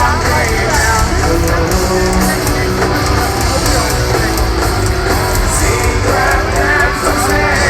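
Live rock band playing loud, heavy rock with guitars and a man singing over it.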